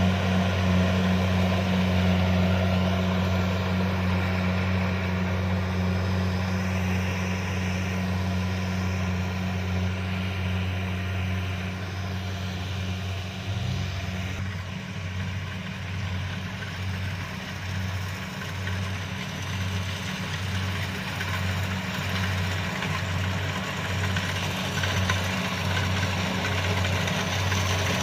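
Kubota DC-70 combine harvester's diesel engine running steadily under a wash of machinery noise, with a constant low hum. About halfway through, the hum starts to pulse in a regular beat.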